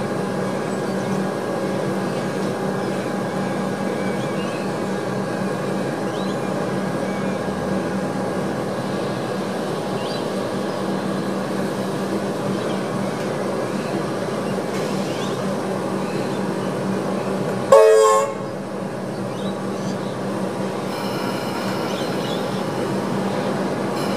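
An electric suburban train standing at the platform gives off a steady hum from its onboard equipment. A single short train horn blast sounds about three-quarters of the way through.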